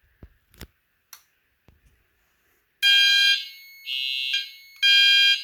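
A few faint clicks, then about three seconds in the fire alarm system goes into alarm as a smoke detector is tripped with test smoke. Electronic alarm horns sound in loud pulses about two seconds apart, with a quieter alarm tone between the blasts.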